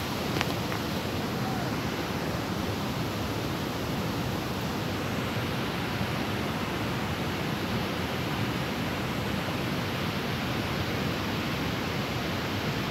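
A steady, even rushing noise that does not change or gust.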